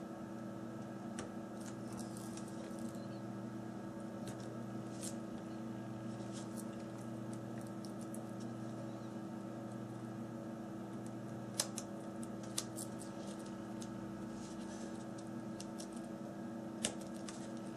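Steady low electrical hum with a few faint, scattered clicks and taps of small tools on a phone's internal parts as its ribbon cables are unclipped.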